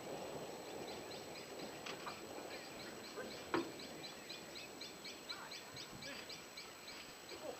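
Cricket chirping steadily in short high chirps, about four a second, with a single sharp click about three and a half seconds in.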